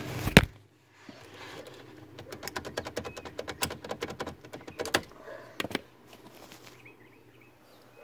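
Ignition lock cylinder being wiggled and worked out of its housing with the retaining pin held in: a sharp click, then a run of quick clicks and rattles, and a couple of louder knocks about two thirds of the way in.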